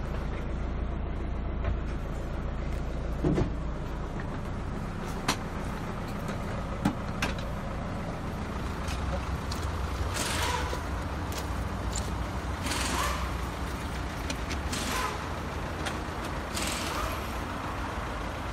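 Handling noise and footsteps as the camera is carried out of a camper bus, over a steady low rumble. A few sharp knocks come in the first seven seconds, then a run of short scuffs about every second or two.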